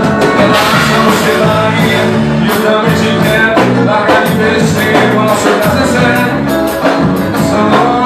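Live band playing loudly with electric guitars and a drum kit, the cymbals and drums keeping a steady beat.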